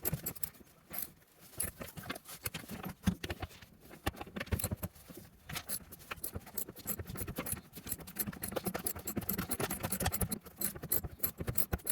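Metal hand tool clicking and clinking on a bolt as an old seatbelt anchor is loosened by hand, with many small irregular clicks and knocks.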